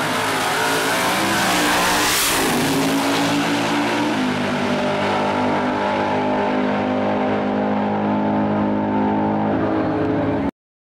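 Two super stock drag cars' V8 engines at full throttle, launching off the line and pulling away down the strip. The engine pitch steps down about two and a half and four seconds in as they shift gears, then holds steady. The sound cuts off abruptly near the end.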